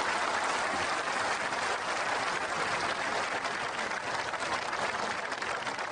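Crowd applauding, a steady dense clapping that fades a little near the end.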